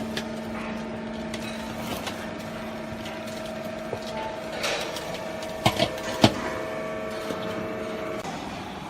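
Household garbage baler running with a steady, even hum. Three sharp clunks come a little past the middle, and the hum cuts off near the end.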